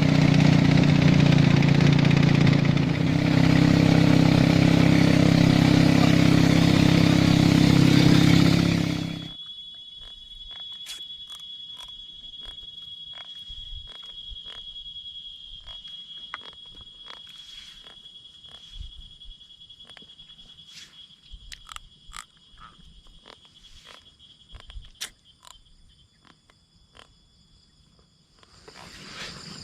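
A small engine runs steadily, then shuts off about nine seconds in. After it, night frogs and insects call: a steady high insect tone with scattered clicks and croaks.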